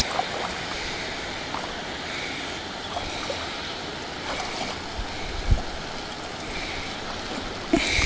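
Steady hiss of water running in a drainage ditch, with a soft knock about five and a half seconds in and a louder rustle near the end.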